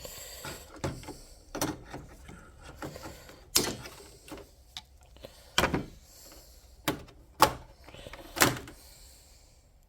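Sharp clicks and snaps from a hand tool cutting through the hood latch release cable: about seven strokes at uneven intervals, with light scraping between them.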